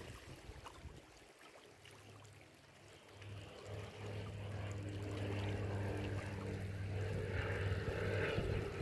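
A boat engine's steady low drone sets in about two seconds in and grows louder, over small waves lapping on a rocky shore.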